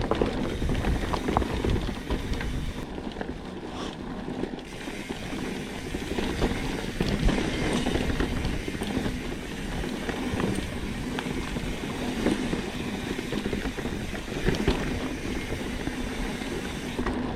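Mountain bike rolling over a rough dirt trail: steady tyre rumble with the bike rattling and clicking over bumps and roots.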